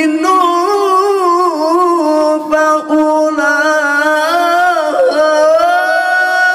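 A male qari's voice in melodic, ornamented Quran recitation (mujawwad tilawah), amplified through a handheld microphone: a melismatic line of wavering pitch turns with brief breaks, settling into a long steady held note near the end.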